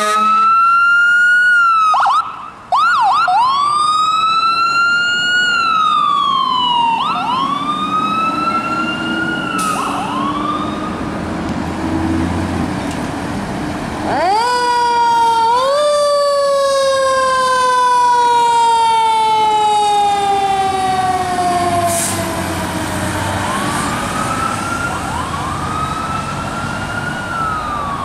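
Emergency-vehicle sirens. A fire-rescue ambulance's siren wails up and down, with quick yelps a couple of seconds in. About halfway through, a deeper siren winds up fast as the fire engine pulls out, then falls slowly in pitch for several seconds, before the wailing returns near the end.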